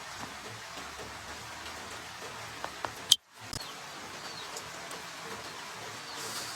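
Steady rush of running water. About three seconds in there is a sharp click and the sound cuts out for a moment. Near the end come a few short falling bird chirps.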